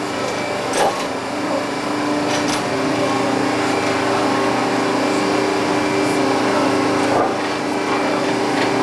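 Railroad track renewal machine replacing wooden ties with concrete ties, running with a steady mechanical hum and dense working noise, broken by a few sharp knocks.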